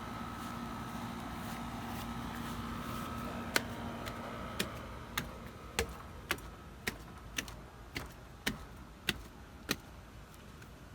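A steady hum that fades out a few seconds in, followed by a run of about eleven sharp clicks or knocks, evenly spaced at roughly two a second.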